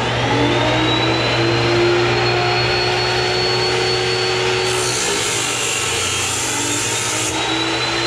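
Metal-cutting chop saw running and cutting steel axle stock, a steady drone with a harsher, higher edge between about five and seven seconds in.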